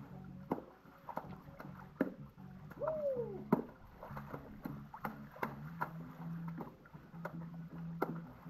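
Hands slapping and splashing water in a swimming pool, a string of separate splashes roughly one or two a second, over a steady low hum.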